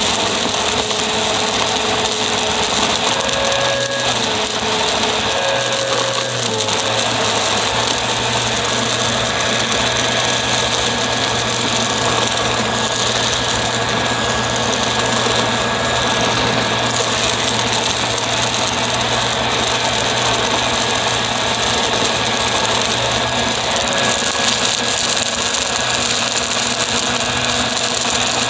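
Upright vacuum cleaner running steadily on the floor, its motor and brushroll giving a constant loud whir, with a few brief shifts in pitch in the first few seconds.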